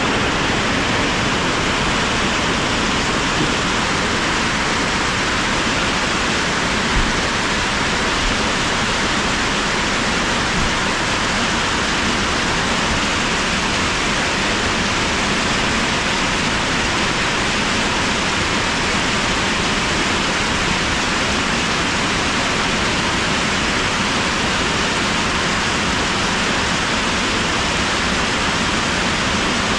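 Heavy tropical rain pouring down in a steady, dense hiss.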